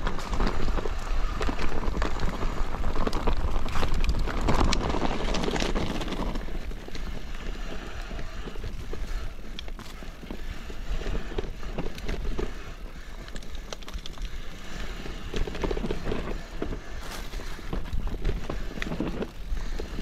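Mountain bike descending a rough trail: tyre noise over gravel and rock with frequent rattles and knocks from the bike, and a steady low buffeting of wind on the microphone. It is rougher and louder in the first six seconds, then steadier.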